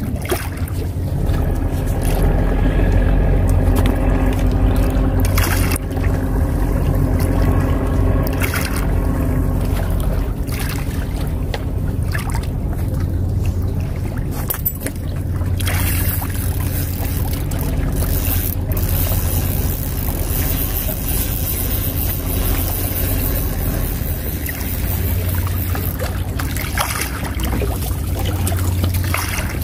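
A boat engine running steadily as a low drone, with scattered sharp clicks over it.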